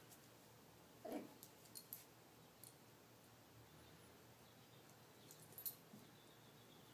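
Faint sounds of two Miniature Pinschers play-fighting: one brief dog vocal sound about a second in, and a few light clicks scattered through.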